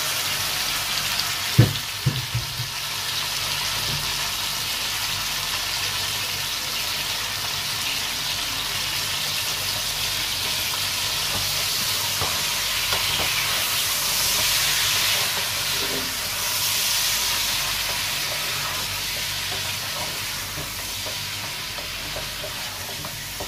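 Raw chicken pieces frying in hot oil in a pot, a steady sizzle as they are stirred with a wooden spatula. A couple of sharp knocks come about two seconds in.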